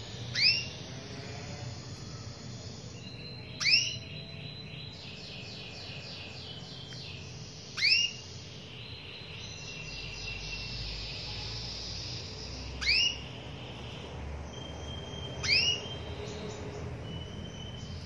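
Female domestic canary giving five loud, short rising call notes a few seconds apart: a hen calling to a male. Faint twittering runs behind.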